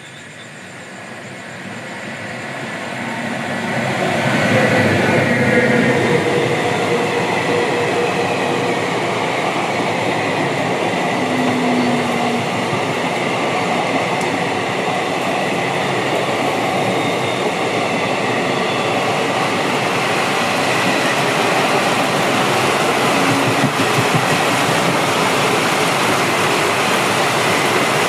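A train running past on the rails. Its noise builds over the first four seconds, then holds as a steady rumble and rattle.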